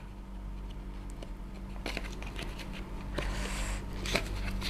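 A paper sachet of whipped-cream powder being torn open by hand: small ticks and crinkles, with rustling bursts about two and three seconds in.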